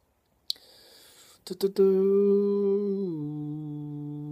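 A man humming a long, thoughtful "hmm" with his mouth closed. It holds one steady note, then steps down to a lower one halfway through. Just before it comes a short breath and a couple of mouth clicks.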